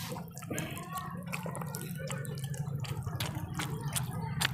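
Wet eating sounds: fingers squishing and mixing curry-soaked rice and mouths chewing and smacking, heard as a run of short wet clicks and squelches over a steady low hum.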